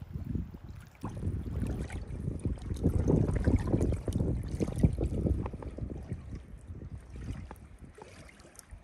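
Water sloshing and splashing in irregular bursts, loudest in the middle and fading toward the end.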